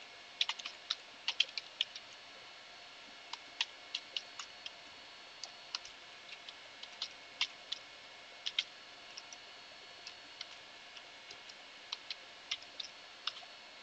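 Computer keyboard typing: fairly quiet, irregular keystroke clicks in short runs with brief pauses between them.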